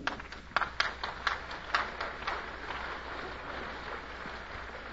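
Audience applause. It starts as a few separate claps, spreads into a steady patter of many hands, and thins out near the end.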